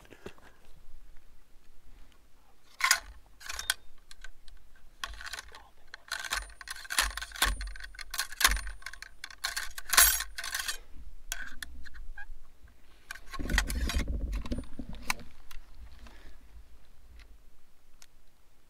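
Handling of hunting gear: a string of sharp metallic clicks and clinks, the sharpest about three seconds in and near the middle, with rustling of clothing and grass about two thirds of the way through.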